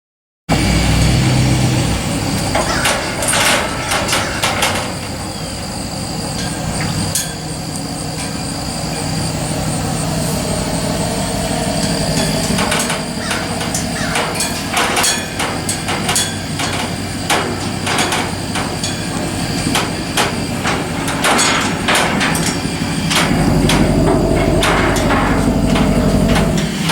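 An engine running steadily with frequent, irregular sharp metallic knocks and clanks over it. The engine grows louder a few seconds before the end.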